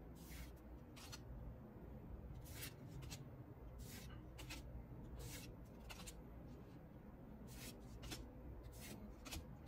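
Pokémon trading cards being slid one by one off the front of a hand-held stack: about a dozen short, soft swishes and flicks of card on card, irregularly spaced.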